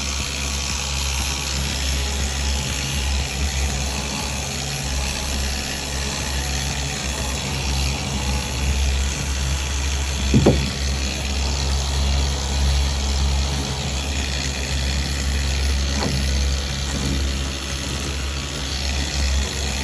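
Power tool motor running steadily on boat gel coat, with a brief sharp knock about ten seconds in.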